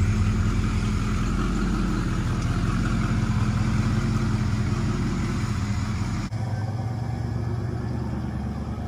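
An OBS-era Ford Bronco's engine running steadily at idle, close to the tailpipe. About six seconds in the sound changes abruptly to the truck heard from farther off as it drives away.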